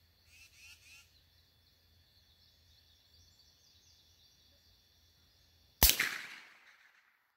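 A single shot from a Henry youth .22 lever-action rifle a little under six seconds in: a sharp crack with a short echoing tail that dies away within about a second.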